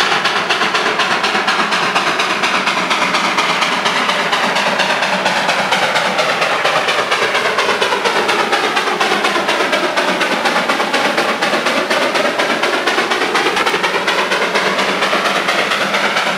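Darjeeling Himalayan Railway B-class narrow-gauge steam tank locomotive working along the line with a rapid, even chuff and hiss of steam, drawing near and passing close by.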